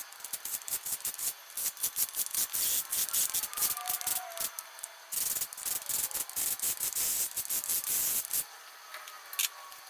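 Cordless impact driver hammering down the bolts of a shaft-mount rocker arm system on an LS V8 cylinder head, with rapid impacts. It runs in two long bursts, with a short break about five seconds in, and stops about eight and a half seconds in.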